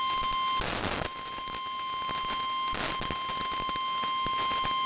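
NOAA Weather Radio 1050 Hz warning alarm tone: a single steady beep heard through a radio receiver with static hiss. A burst of static breaks it about half a second in, and another comes around three seconds in. The tone signals that a weather warning broadcast follows.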